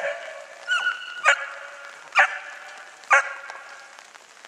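Young Piccolo Lepraiolo hounds barking, a sharp high bark about once a second, five in all, one of them drawn out briefly into a held note.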